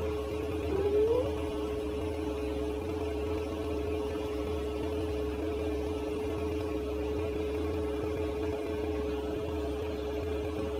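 Steady electrical hum, a constant mid-pitched tone over a low drone, with a brief upward wobble in pitch about a second in.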